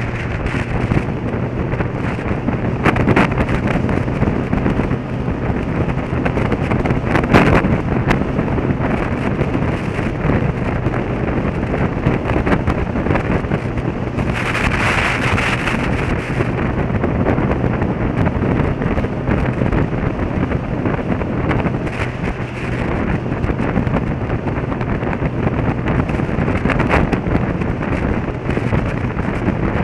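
Motorcycle riding at a steady speed: the engine holds one even note under heavy wind rush on the microphone. About halfway through, a louder hiss of rushing air swells for a second or two.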